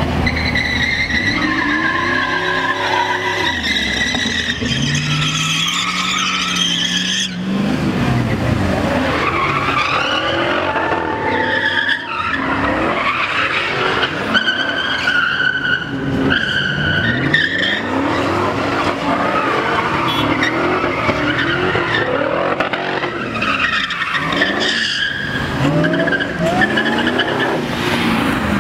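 Pickup truck engines revving up and down hard while the rear tires spin and squeal in burnouts.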